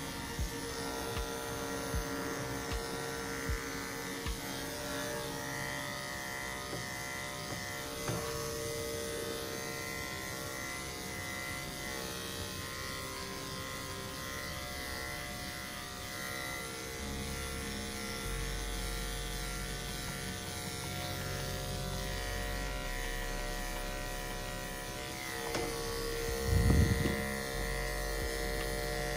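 Corded electric dog clippers running with a steady buzzing hum while shearing a dog's coat, with a brief louder bump near the end.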